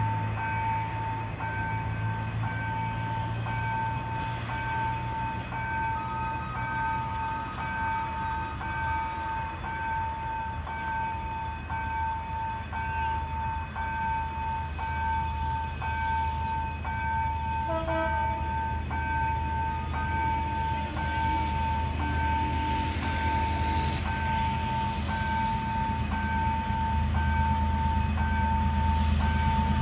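An EMD GR12 diesel locomotive approaching from the distance: its low engine rumble builds steadily, with a short horn blast about 18 seconds in. Over it runs a level-crossing warning signal, a steady ringing tone that pulses about once a second.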